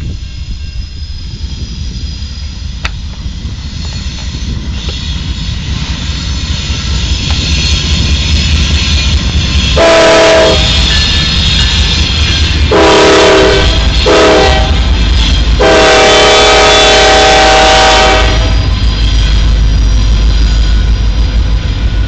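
Two diesel locomotives of a rock train rumbling past close by, growing louder as they approach. About ten seconds in, the lead unit's multi-chime air horn sounds long, long, short, long: the standard grade-crossing signal. After that comes the steady rumble of rock hopper cars rolling by.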